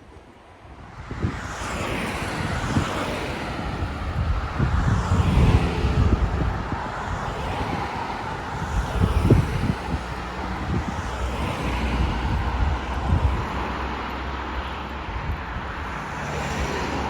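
Motor vehicle running close by, starting about a second in: a steady low rumble and road noise with a few short knocks.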